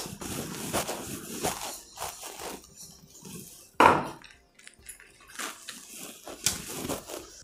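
Wooden rolling pin rolling out chapati dough on a wooden board: irregular light knocks and scrapes, with one louder knock about four seconds in.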